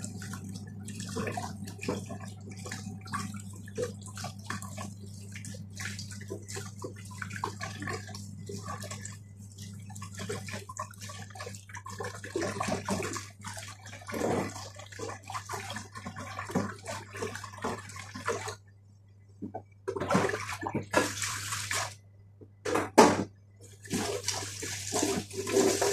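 Kitchen mixer tap running into a stainless steel sink, with uneven splashing as hands rinse vegetables under the stream. The splashing stops briefly twice near the end, then comes back louder.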